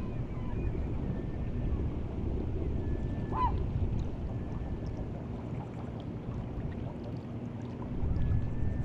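Sea water washing along the shore of the White Sea on the incoming tide, a steady low rush. A short bird call sounds about three and a half seconds in, with faint thin whistled calls from farther birds.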